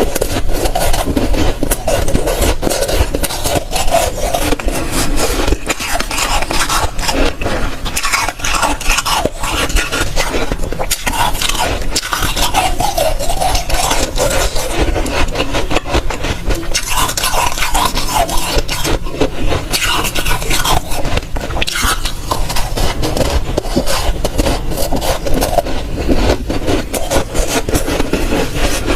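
Close-miked chewing and crunching of dry, powdery freezer frost: a dense, unbroken run of crackly crunches.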